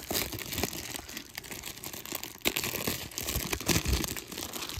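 Plastic shrink wrap being torn and peeled off a VHS tape, an irregular run of crinkling and crackling with a few soft thumps of handling.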